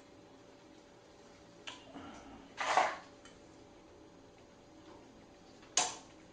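Metal clicks and a short clatter of hand work at the front suspension as a brake line retaining clip is worked loose and popped out. There is a light click, then the loudest clatter about two and a half seconds in, and one sharp click near the end.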